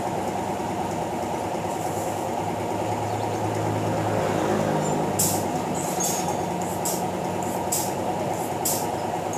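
Handheld electric drill running against a motorcycle muffler's metal cover, its motor pitch shifting as it is pressed in. From about halfway through, sharp metallic clicks come roughly twice a second.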